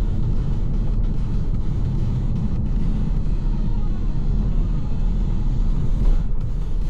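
VW T-Roc driving, its engine and road noise making a steady low rumble.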